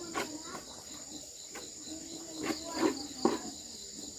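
Steady high-pitched insect chorus, with a fast pulsing trill, like crickets. Several sharp clicks and knocks from handling things are mixed in.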